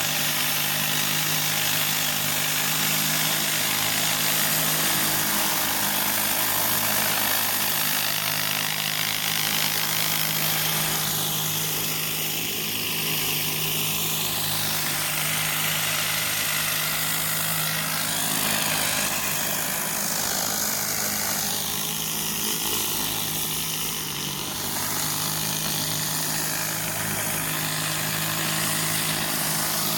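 Gas-engine pressure washer running steadily while high-pressure water sprays out, a loud hiss that shifts in tone as the spray moves.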